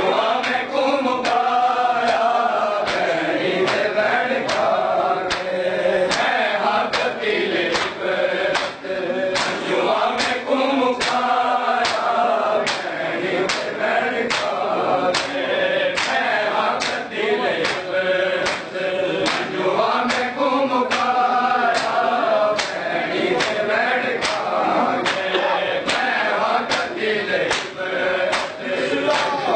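A group of male mourners chanting a noha in unison, kept in time by a steady beat of matam, palms striking the chest.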